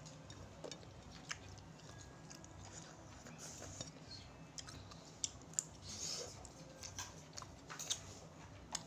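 Close-miked mukbang eating: a person chewing and biting into shrimp cooked in tauco chilli sauce. Quiet, irregular soft crunches and wet mouth clicks, with a few sharper clicks in the second half.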